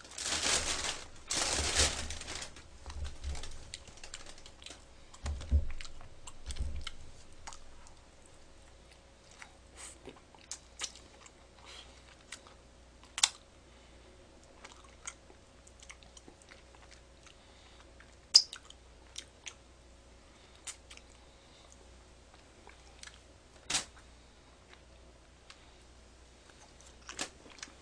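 Fried chicken being bitten and chewed close to the microphone: loud crunching for the first two seconds or so, then scattered light clicks and small crunches of eating.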